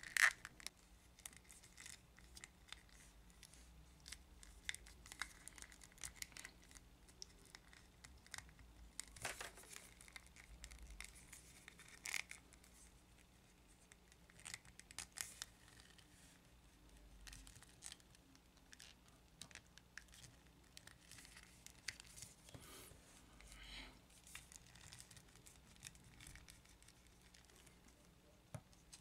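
Fingers working the joints of a knock-off NECA arcade Teenage Mutant Ninja Turtles action figure: faint, scattered plastic clicks and scratchy rubbing as the limbs are bent and swivelled, with a few sharper clicks among them.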